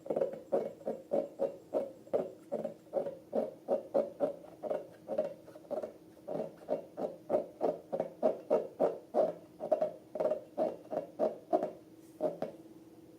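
Slime being pressed and kneaded by hand, giving short wet squishing pops in a steady rhythm of two to three a second. The rhythm stops near the end.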